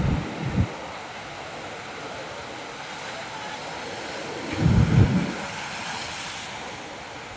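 Ocean waves washing over a rocky beach in a steady hiss of surf. Wind buffets the microphone in low rumbling gusts at the start and again about five seconds in.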